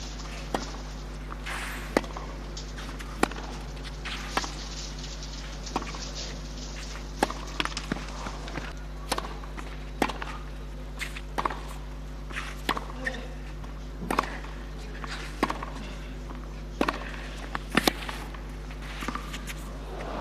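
Tennis ball struck by rackets in baseline exchanges on a clay court, sharp pops about a second apart at times, with shoes scuffing and sliding on the clay between shots. A steady low hum runs underneath.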